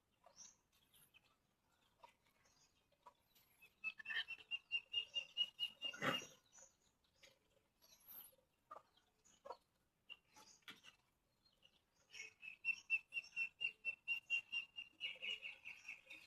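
Young puppies peeping in rapid runs of high, even chick-like squeaks, about five a second, in two bouts. A soft thump comes about six seconds in, with small scuffling clicks between the bouts.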